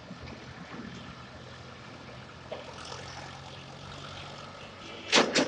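Street traffic: a steady engine drone over the general noise of passing vehicles. Near the end a couple of loud, sharp knocks break in.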